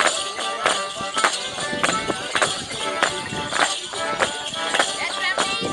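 Squeezebox dance tune played live, with the dancers' feet striking the paving in a steady beat about every 0.6 seconds.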